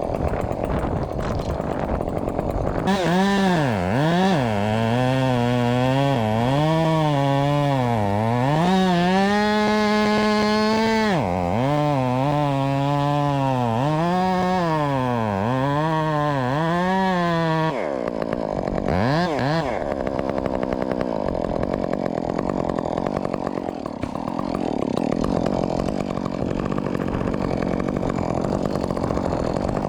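Modified Husqvarna 562XP two-stroke chainsaw cutting wood, its engine pitch dipping and recovering over and over as the chain bites and clears, with a couple of seconds held steady at high revs in the middle. After about eighteen seconds it drops to a lower, rougher running sound.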